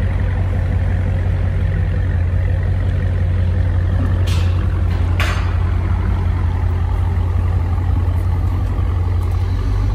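Dodge Challenger SRT's V8 idling through a muffler-deleted exhaust, a steady deep rumble. Two brief hisses about a second apart near the middle.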